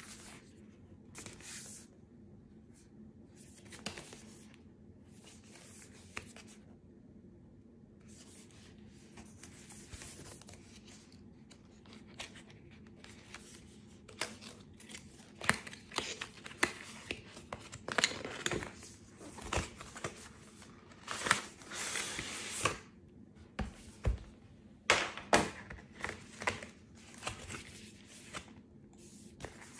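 Cardboard box of a tablet case handled and opened by hand: faint handling at first, then from about halfway a run of sharp rips and rustles as the packaging is torn open and the inner contents pulled out.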